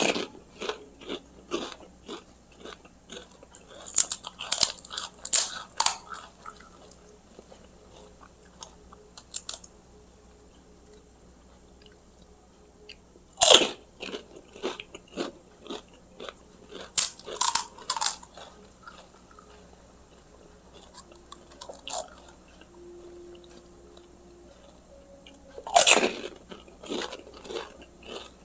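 Close-up crunching and chewing of pani puri (fuchka): crisp hollow puri shells cracking as they are bitten, then chewed. Loud bursts of crunching come every few seconds, about six times, with quieter chewing between them.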